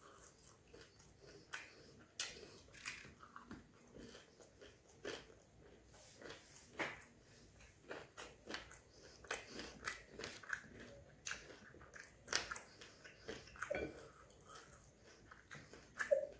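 Chewing and biting into fried Sri Lankan prawn vadai (isso wade) with onion and sauce, with irregular sharp crunches of the fried batter between softer mouth sounds.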